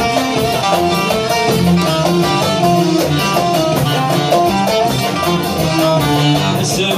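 Instrumental Kabyle music played live: a mandole plucks a fast melodic line together with an electronic keyboard.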